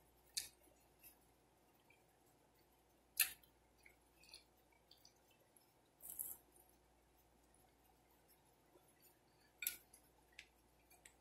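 Close-up eating sounds: a few sharp, wet mouth clicks and lip smacks every few seconds, with a longer crunchy bite into a crisp piece of toasted food about six seconds in.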